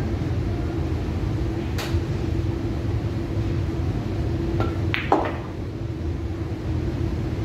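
A pool shot about five seconds in: the cue tip (a carbon-fibre Predator Revo shaft) strikes the cue ball, followed within a fraction of a second by the sharp clack of the cue ball hitting the object ball and a softer knock after it. A steady hum runs underneath, and there is a faint single click near two seconds in.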